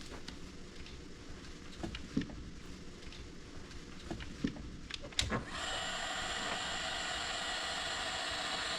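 Small clicks and knocks of hands working on crimped wire splices, then about five and a half seconds in an electric heat gun switches on and runs with a steady whirring hiss, shrinking tubing over the splices.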